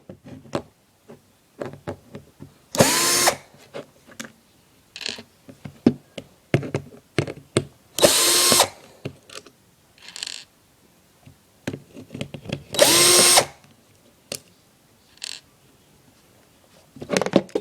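Electric screwdriver running in three short bursts about five seconds apart, each spinning up with a whine, backing out the outer screws of a P-23 BB pistol's housing. Small clicks of handling the pistol and screws come in between.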